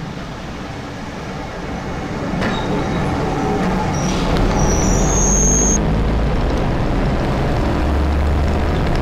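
Waggon und Maschinenbau diesel railbus running into a station platform, growing louder as it draws alongside, with a brief high brake or wheel squeal about halfway through as it slows. Near the end its engine is heard from on board, running steadily.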